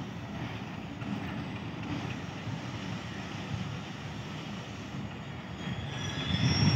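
HBU-20 diesel-electric locomotive running as it hauls a passenger train slowly into the station. Near the end, high brake squeal as the train comes to a stop.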